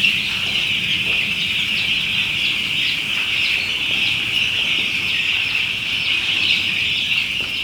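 Broiler chicks about five to six days old cheeping together in a dense, continuous high-pitched chorus, the sound of a large brooding flock.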